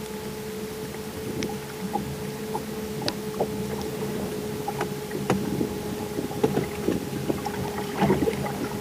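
A steady hum from the fishing boat's small motor, with scattered light knocks and clicks of gear and hull. The knocks grow more frequent toward the end.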